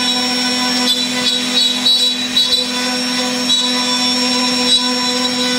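CNC router spindle running at speed while its carving bit cuts a relief border into a wooden board: a steady whine made of several held tones over the rasp of the cutter in the wood, with small flickers in level as the bit moves.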